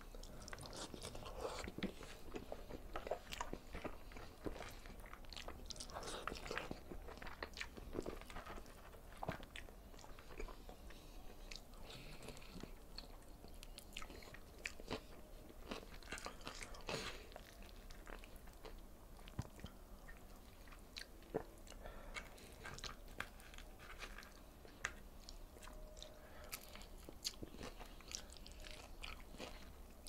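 Close-miked chewing of rice and fried tilapia eaten by hand: irregular wet clicks and mouth sounds with occasional crunches, going on throughout.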